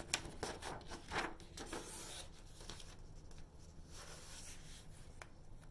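Faint rustling with a few light taps and clicks: things being handled on a tabletop.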